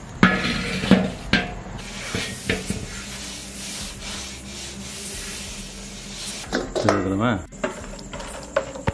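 A big iron kadai knocks and clanks a few times as it is handled, then a cloth rubs round inside the pan. Near the end a hand is worked through a pot of wet ground garlic, giving quick squelching clicks.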